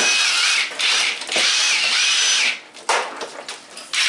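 Power drill running with a wavering motor whine, let off briefly twice, then stopping about two and a half seconds in. Light clicks and rattles follow.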